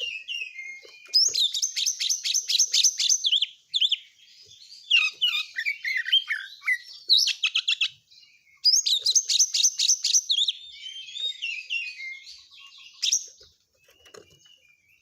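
Oriental magpie-robin singing a fast, dense song: runs of rapid repeated notes alternating with varied warbled phrases, the mix of borrowed calls that keepers call isian. The song trails off near the end.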